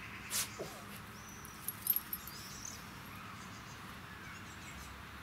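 Jack Russell terriers rustling and scratching in long grass and soil as they sniff and dig, in a few short bursts about half a second in and around two seconds in. Faint birds chirp in the background.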